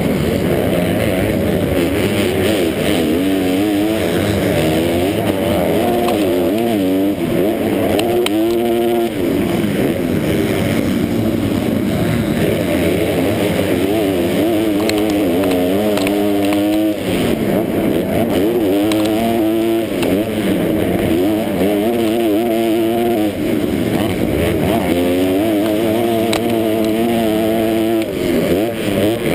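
250-class motocross bike engine heard on board, running hard under race throttle, its pitch rising and falling again and again as the rider opens and closes the throttle and shifts gears.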